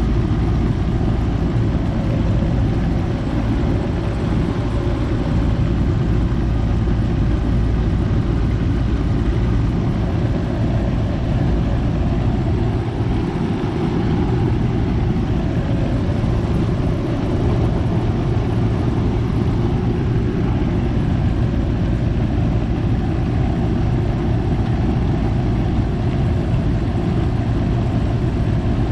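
Goodman central air conditioner's outdoor condensing unit running steadily, compressor and condenser fan both on, with a low steady hum under the fan's rushing noise. The compressor is running again after its failed 45/5 MFD run capacitor was replaced.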